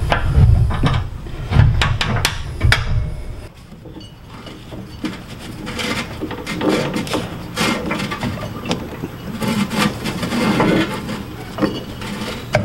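Knocks and metal clanks, then a longer run of steel rubbing and scraping as a deck hanger pin is worked against the deck bracket of a Cub Cadet Ultima ZT2 zero-turn mower. A bracket is in the way of the pin, so it won't go through.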